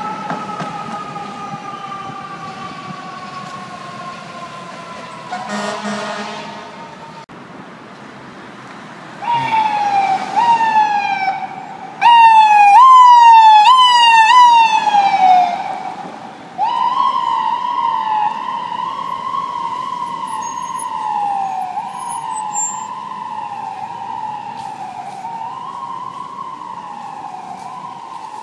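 Emergency vehicle sirens in city traffic. A fire truck's siren slowly falls in pitch as the truck pulls away, with a short horn blast about six seconds in. Then an ambulance's siren in a fast yelp, loudest as it passes close, is followed by a slower rising-and-falling siren.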